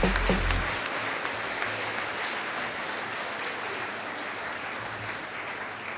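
Audience applauding, with the sound easing off slightly toward the end.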